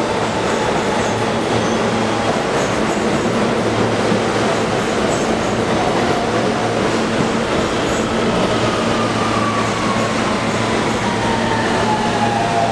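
New York City subway train moving along a station platform: a steady rumble of wheels on rail and running gear. Near the end a motor whine slides down in pitch.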